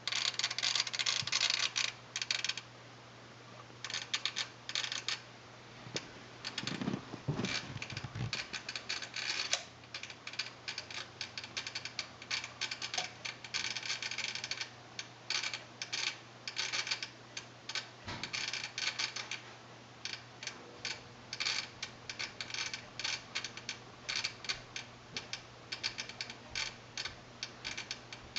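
Sony STR-DA555ES receiver chattering: rapid, irregular clicking in bursts, a fault that came on by itself during use. A faint steady hum sits underneath.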